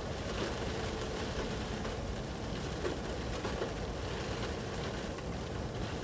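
Swollen stream rushing over a low stone weir, with wind gusting through the trees and buffeting the microphone in a steady, rumbling noise.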